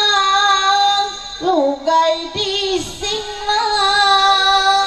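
A woman singing Sundanese sawer wedding verses solo into a microphone. She holds long, drawn-out notes, with wavering ornaments between them about one and a half to three seconds in.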